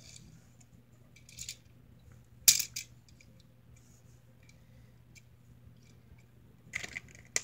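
A few sharp clicks and clacks of die-cast Hot Wheels toy cars being set down on a tile floor, the loudest about two and a half seconds in and a few more near the end, with a faint rustle of plastic blister packaging.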